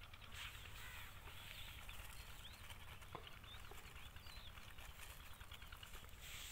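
Faint open-air field ambience with scattered brief, distant bird chirps.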